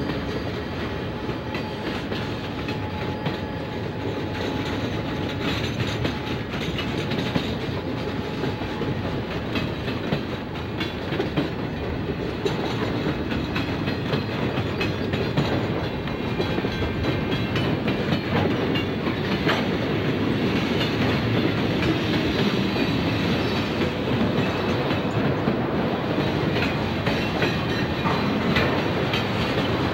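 Freight cars rolling past on steel wheels: a steady rolling noise of wheels on rail, with scattered clicks as the wheels cross rail joints.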